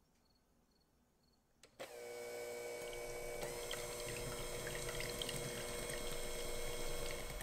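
Near silence, then about two seconds in an electric hand mixer switches on with a click and runs steadily, its beaters whisking egg whites in a glass bowl.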